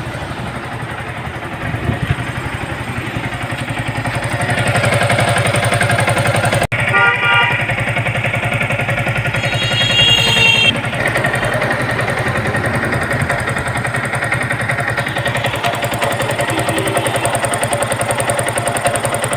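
Yamaha R15's single-cylinder four-stroke engine running steadily with a loud, unhealthy mechanical noise, which the mechanic puts down to a badly rubbing, worn piston and a valve problem. Two short higher-pitched tones sound about seven and ten seconds in.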